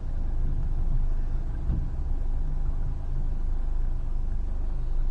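Boat motor running steadily at trolling speed, heard from on board; most of the sound is low-pitched and even, with no change in speed.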